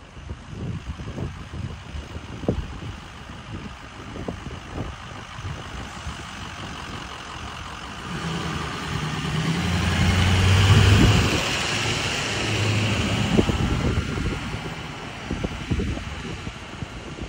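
Ford Super Duty fire squad truck's engine as it pulls out and drives past, growing louder to a peak about ten to eleven seconds in, then fading as it moves away. Wind buffets the microphone in the first half.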